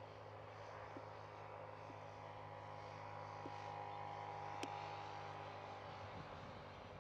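ÖBB class 2050 diesel-electric locomotive running light along the track, heard as a steady low engine drone with a whine over it. A few faint clicks come through, the sharpest about four and a half seconds in.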